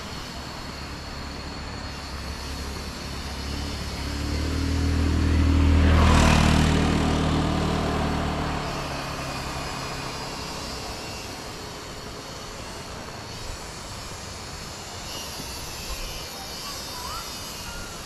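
A motor vehicle passes close by. Its engine grows louder to a peak about six seconds in, then fades away. Underneath, cicadas keep up a steady high buzz.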